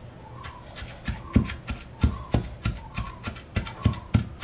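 A wooden pestle pounding a grated coconut, garlic and green chilli paste in a small wooden mortar. It sets up a steady rhythm of dull thuds, about three a second, starting about a second in.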